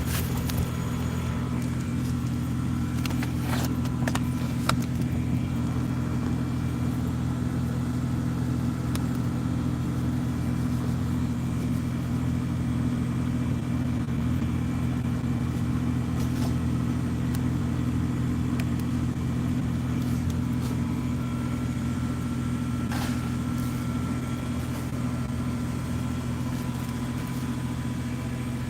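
A steady low engine hum that does not change in pitch, with a few faint clicks and knocks, the clearest around four seconds in and again near the end.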